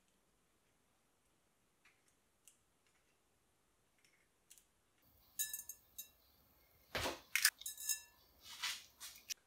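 Eggs being separated by hand over glass bowls. Faint light taps in the first half, then from about halfway a run of sharp clinks against the glass, each ringing briefly.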